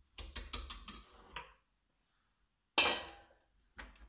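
Plastic cling film crinkling as it is pressed down into a glass dish. About three seconds in comes a sharp clatter of kitchenware that rings briefly, then a lighter knock near the end.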